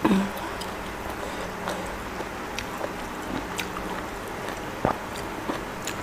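Close-up eating sounds of a person eating sticky rice and spicy grilled pork salad by hand: quiet chewing and mouth smacks with a few small scattered clicks. A short falling vocal sound comes right at the start.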